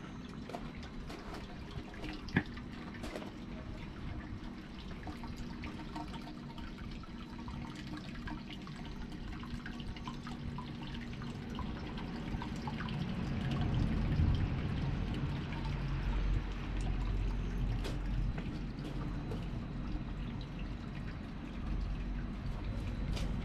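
Hot-spring water trickling and dripping in a granite basin. A low rumble grows louder about halfway through.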